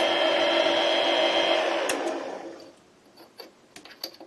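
Small benchtop mini lathe running steadily with a motor whine. It is switched off with a click about two seconds in and spins down over the next second. A few light metallic clicks follow as the lathe is handled.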